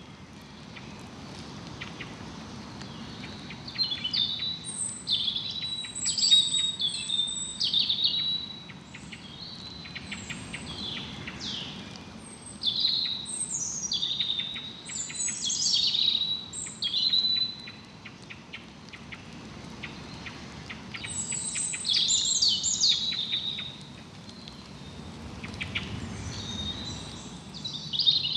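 Songbirds singing, with quick high chirps and whistles in phrases that come and go every few seconds, over a faint steady background hiss.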